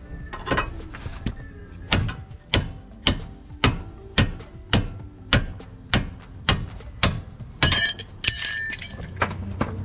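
Small sledgehammer striking steel on a car's front suspension, nearly two blows a second, working the outer tie rod end loose from the steering knuckle. A brief metallic ringing sounds between blows near the end.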